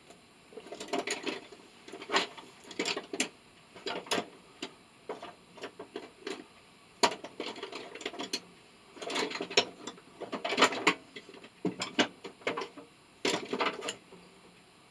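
Hand tools working on metal parts: irregular clicks, taps and short rattling clusters, with several denser bursts a little past the middle.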